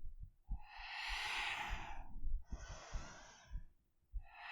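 A woman's deep, audible breathing: two long breaths in a row, the first about a second and a half, the second a little shorter.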